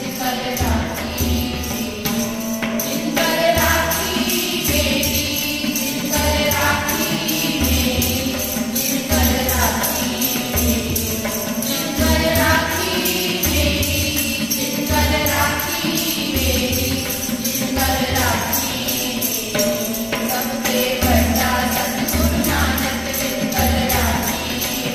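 Women's voices singing a Sikh shabad (devotional hymn) together, with harmonium, a steady rhythm of tabla strokes and a hand-held jingling percussion instrument.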